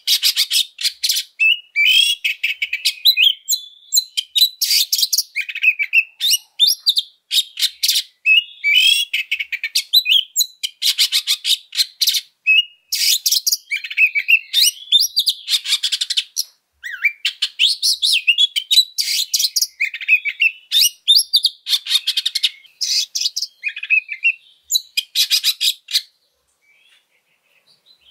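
Oriental magpie-robin singing a fast, aggressive fighting song of harsh rasping notes mixed with gliding whistled phrases, full of mimicked calls; it breaks off near the end.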